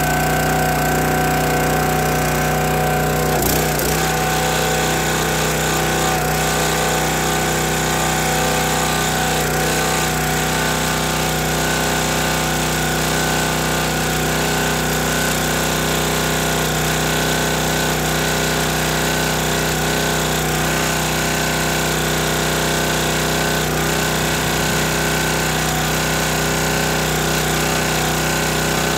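Small gas engine of a County Line hydraulic log splitter running steadily and evenly, with a single knock about three and a half seconds in.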